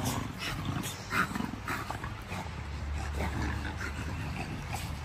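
American bully dogs making short dog noises, several in quick succession in the first two seconds, over a low steady rumble.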